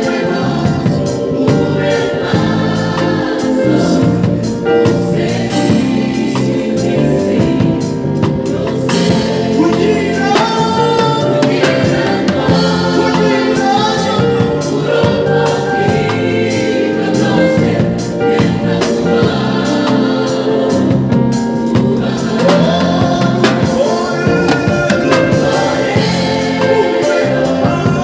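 A gospel choir singing with a full band backing, with an electric bass guitar played along, its notes moving underneath.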